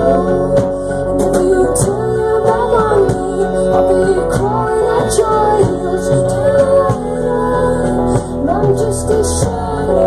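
Live band music played through a PA: electric guitar, violin, keyboard and drums.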